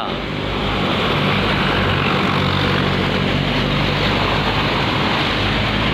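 Tour bus diesel engine running close by: a steady low engine drone under a dense wash of road and traffic noise.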